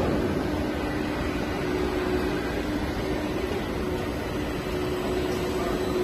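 HDPE corrugated pipe extrusion line running: a steady mechanical whir with a constant hum, even throughout.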